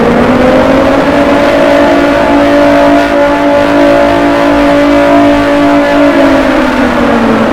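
Alarm siren wailing. Its pitch rises over the first second, holds steady for about five seconds, then falls away near the end.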